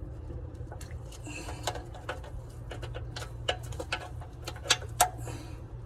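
Irregular sharp clicks and taps, with two louder ones near the end, from hands and tools working at an oil filter under a car, over a low steady hum.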